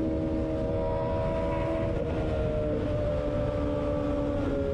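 Yamaha sport motorcycle engine running at steady high revs at road speed, its pitch sagging slowly and shifting about two seconds in and again near the end, over heavy wind and road rumble.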